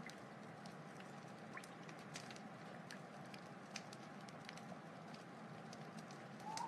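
Wood fire burning: irregular sharp crackles and pops over a steady hiss. A faint steady whistling tone runs underneath and swells louder just before the end.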